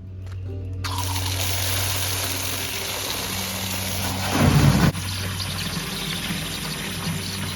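Water spraying from a garden hose in a steady hiss that starts about a second in, over a steady low hum, with a brief loud rumble about halfway through.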